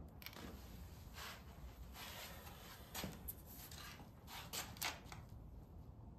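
Faint scratchy strokes of a bristle paintbrush working oil paint, with a few light clicks and taps around the middle and near the end as the brush is handled and reloaded.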